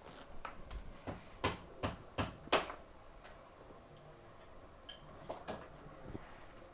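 Light, sharp clicks and taps of small hand tools against the metal reballing stencil and board while a chip is being reballed: about five close together over a second and a half, then a few fainter ones.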